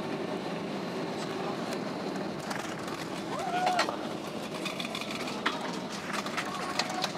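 Steady cabin noise of a Boeing 767-200 rolling down the runway just after touchdown, with scattered clicks and rattles and a brief voice about halfway through.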